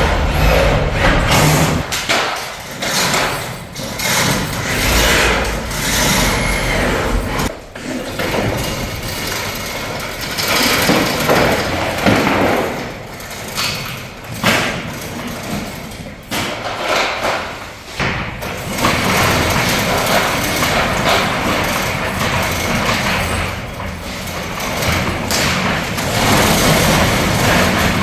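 Clanks and thumps of steel roll-up garage door hardware being hung and fitted, with an engine running in the first several seconds.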